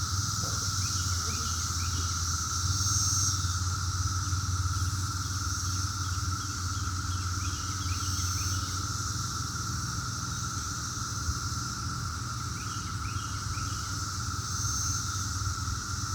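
Chorus of Brood X 17-year periodical cicadas: a loud, continuous hum held at one steady pitch.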